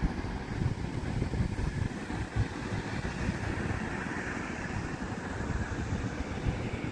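Wind buffeting the microphone: a steady, fluttering rumble over a fainter even hiss.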